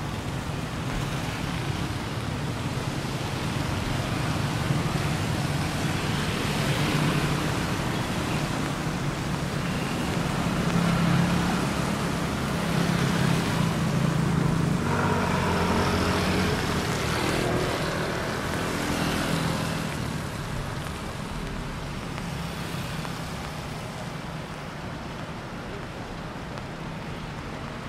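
Road traffic on a rain-wet highway: vehicles passing with engine hum and tyre hiss over a steady wash of noise. The engine sound swells through the middle and dies away about twenty seconds in.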